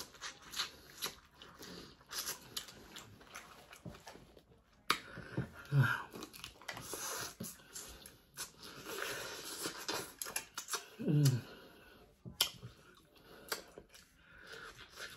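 Dungeness crab shell cracking and crunching, with chewing and sucking close to the microphone. A short voiced sound that falls in pitch breaks in twice, about six and eleven seconds in.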